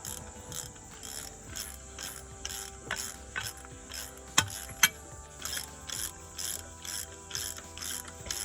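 Hand ratchet wrench clicking in a steady rhythm, about two to three clicks a second, as new bolts are run in on a tractor hitch, with two sharper metal knocks about halfway through.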